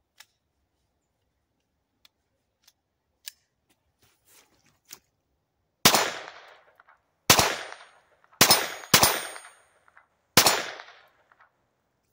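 Five shots from a GSG 1911-22 semi-automatic pistol in .22 LR, fired at an uneven pace that empties the magazine, each trailing off in a short echo; two come in quick succession. A few faint clicks come before the first shot.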